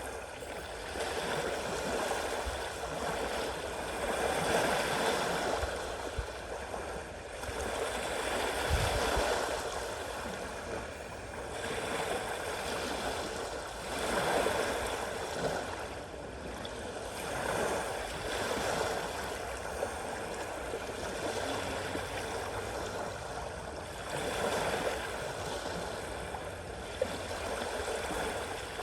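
Sea waves washing in and out, the noise swelling and falling about every four to five seconds.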